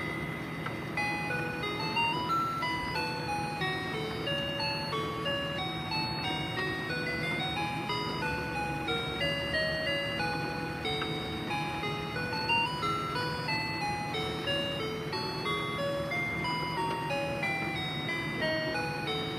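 Toy cash pusher machine playing an electronic jingle: a melody of short beeping notes stepping up and down, over a steady hum.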